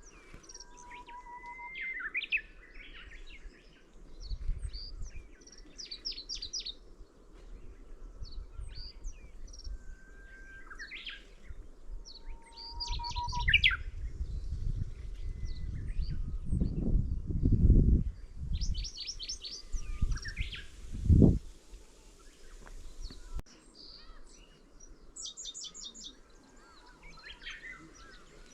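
Middendorff's grasshopper warbler singing: a short, high, trilled phrase repeated every few seconds. Through the middle, bouts of low rumbling noise come and go, ending in a sharp low thump about three-quarters of the way through.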